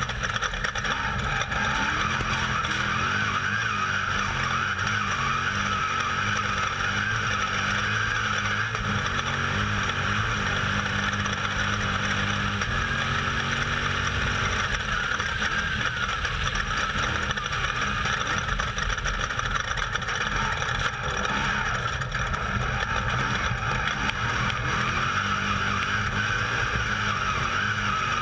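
Off-road race vehicle's engine running hard at racing pace, heard from on board, its pitch rising and falling with the throttle in the first half and steadier later, under a steady rush of wind and terrain noise.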